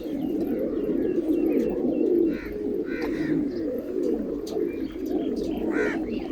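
A flock of pigeons cooing together in a dense, continuous chorus of overlapping low calls, with short higher chirps scattered over it.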